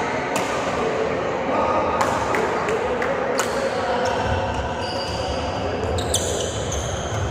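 Badminton rackets striking a shuttlecock in a rally: sharp hits every second or two, with a few high squeaks in the second half and voices in the background.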